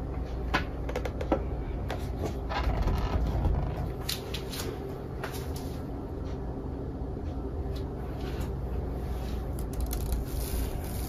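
Handling noises: scattered light clicks and short rustling scrapes over a steady low hum.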